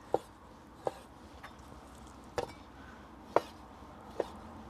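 Knife cutting raw boneless chicken breast into small cubes on a cutting board: five sharp knocks of the blade, irregularly spaced about a second apart.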